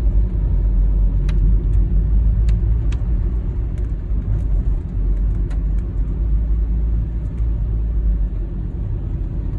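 Car driving: a steady low rumble of engine and road noise, with a few faint light ticks.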